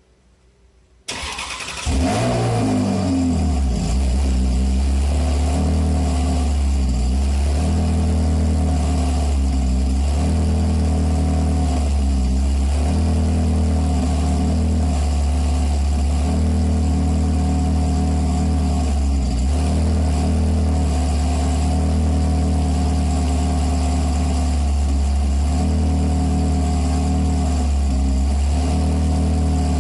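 Ferrari 360's 3.6-litre V8 through an MS-Racing aftermarket exhaust, starting about a second in: a short crank, then the engine catches with a brief flare of revs and settles into a steady, loud idle.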